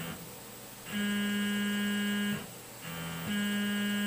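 Tormach PCNC 1100 mill's axis stepper motors whining as the table is jogged along the Y axis in short moves to centre the spindle. The steady pitched whine starts about a second in and stops after about a second and a half. It comes back near the end, on a lower note at first.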